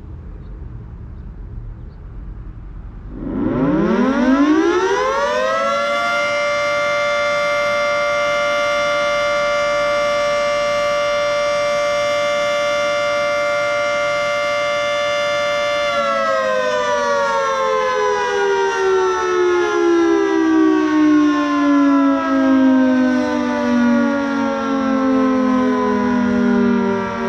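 Federal Sign & Signal 3T22A rotating three-tone warning siren sounding a steady Alert signal for the daily noon test. About three seconds in it winds up quickly, holds a steady chord of several tones for about ten seconds, then slowly winds down in pitch and is still sounding at the end. A low rumble comes before it starts.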